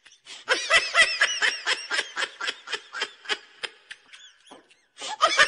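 A high-pitched laugh, a quick run of short pulses that slows and fades about four seconds in, then starts again near the end.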